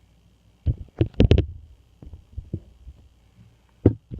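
Handling noise from a LEGO model being touched and shifted: a quick cluster of low thumps and clicks about a second in, and one more knock near the end.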